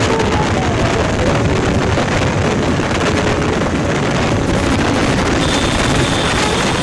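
Steady wind rush and road noise from a motorcycle moving along a road, the wind buffeting the microphone. A faint melody runs underneath.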